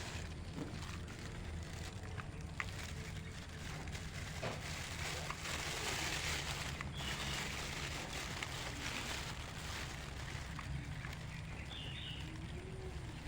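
A few faint, short high calls, about two in all, over a steady low hum, with a few sharp taps in the first few seconds. The calls fit a common flameback woodpecker.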